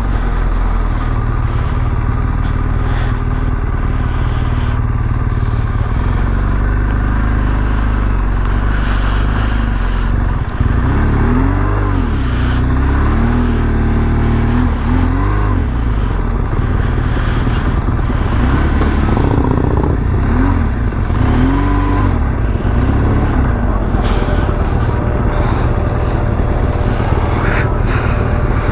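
BMW R1200GS boxer-twin engine running steadily as the motorcycle rides slowly along a street, heard from the handlebars.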